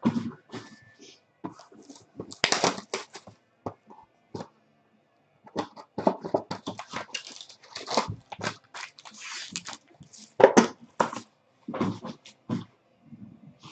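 Foil-wrapped trading card packs crinkling and a cardboard hobby box being handled and opened: irregular rustles, crackles and taps, with a brief lull partway through.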